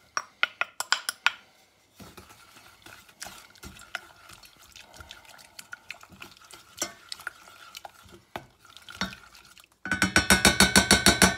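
Wooden spoon stirring sugar, flour and apple cider vinegar in a stainless steel pot. It opens with a quick run of sharp taps as the bowl is knocked empty over the pot, then soft scraping and clicking as the mix is stirred. Near the end comes a fast, loud run of knocks, about ten a second, as the spoon beats around the pot.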